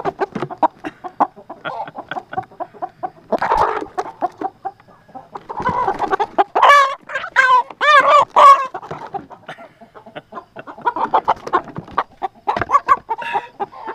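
Hens clucking in quick short notes, with a run of louder, longer squawks about halfway through, as they are pushed by hand into their roost box.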